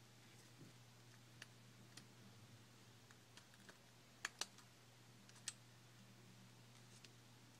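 Near silence with a low steady hum and a few faint, sharp clicks and taps of small phone parts and tools being handled during an iPhone 4 repair, two quick clicks close together about halfway through.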